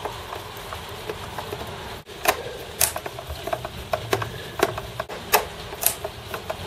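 A screwdriver working the Phillips screws out of the plastic base of a Commodore 1541-II floppy drive: irregular sharp clicks and small scrapes, a few louder clicks spaced about half a second to two seconds apart.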